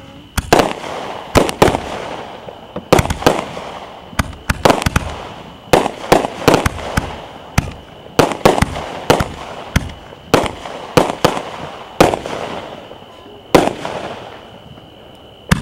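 Aerial fireworks launching and bursting: more than twenty sharp bangs in rapid, irregular succession, several a second at times, with a noisy hiss between them.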